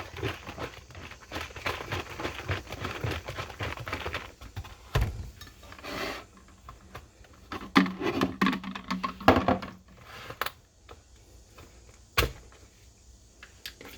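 Plastic bottle of hot water and hair conditioner shaken hard, liquid sloshing and the plastic knocking in a quick run for the first four or five seconds, then scattered knocks and clunks as it is handled and set down.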